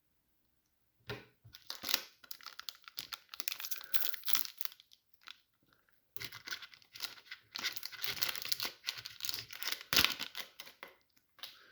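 Foil wrapper of a Dragon Ball Z trading card booster pack being torn open and crinkled, in two long stretches of crackling with a short pause in the middle.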